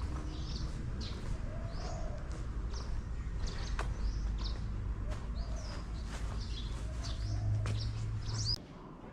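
Small birds chirping in repeated short, high calls over a steady low rumble, which cuts off abruptly near the end.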